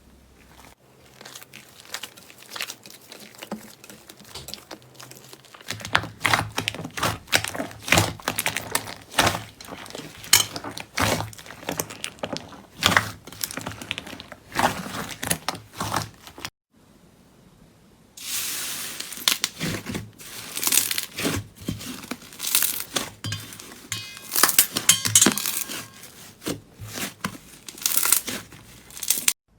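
Slime being squeezed and pressed by hand, giving off a dense crackle of small pops and clicks. It stops for a moment about halfway through, then starts again louder.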